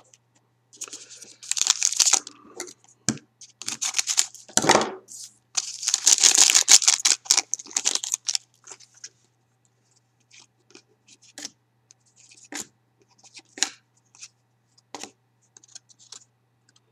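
Foil wrapper of a Panini Titanium hockey card pack being torn open and crinkled in three loud bursts over the first eight seconds. Then come scattered light clicks and rustles as the cards are handled and flipped through.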